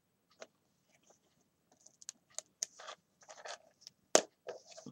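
Hands handling a small lace-trimmed craft box and taking off its lid: faint scattered clicks and rustles that start a couple of seconds in, with one sharper click a little after four seconds.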